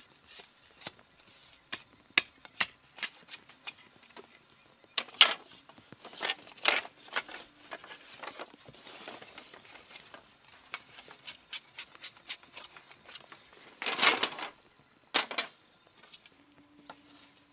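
A large knife tapping, splitting and scraping bamboo strips by hand: a string of light sharp clicks and knocks, with louder cracks about five, six and fifteen seconds in and a longer noisy burst about fourteen seconds in.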